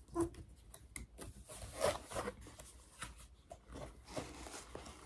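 Cardboard box and its packaging being opened and handled: irregular rustling and scraping of card and paper, with small taps, a little louder about two seconds in.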